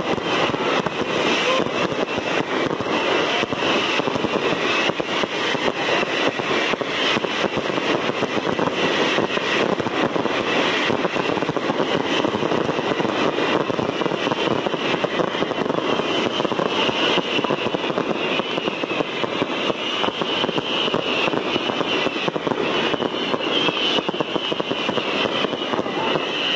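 Fireworks carried by a balão fogueteiro, a Brazilian fireworks balloon, going off as a dense, unbroken crackle of many small pops.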